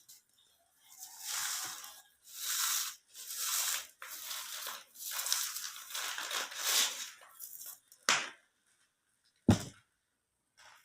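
Soft pink-dyed cement cubes crumbling and being crushed: a run of gritty crunches, one after another. Near the end come a sharp tap and then a single heavier thud.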